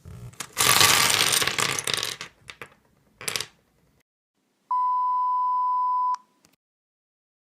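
A loud, noisy crash-like burst lasting about a second and a half, a shorter burst after it, then a steady 1 kHz censor-style bleep lasting about a second and a half that cuts off abruptly.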